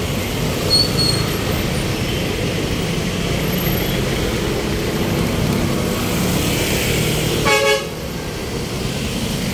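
Road traffic running steadily, with one short vehicle horn toot near the end.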